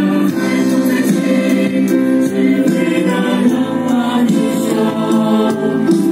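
A mixed choir of young voices singing together, holding sustained chords that shift from note to note.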